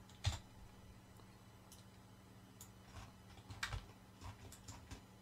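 Faint, irregular clicks of a computer keyboard and mouse, a dozen or so scattered taps with the strongest about a third of a second in and near the middle, over a faint steady low hum.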